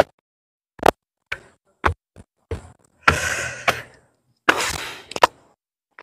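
Footsteps climbing concrete stairs: a few sharp knocks about half a second apart. Then two brief rushes of noise, about a second apart.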